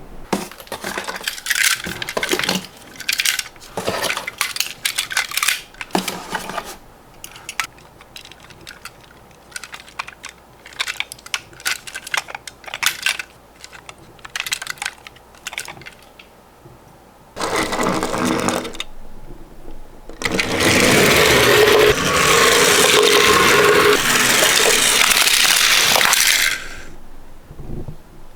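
Toy ambulance minicar being handled, with a run of sharp plastic clicks and rattles. These give way to two stretches of loud, dense rattling noise: a short one just past the middle and a longer one of about six seconds near the end.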